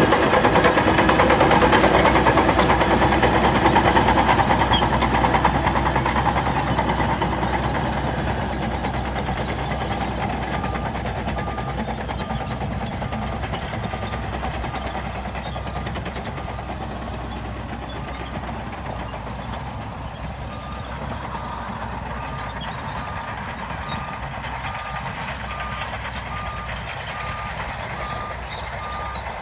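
Heavy construction machinery running, loud at first and then steadily fading as it moves off. From about a third of the way in, a reversing alarm sounds a regular series of short, same-pitched beeps, with one short break.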